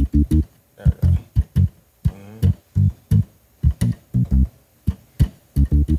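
Funky gospel organ bass line played by hand on the organ's lower manual: short, detached low notes in a syncopated rhythm, about two to three notes a second.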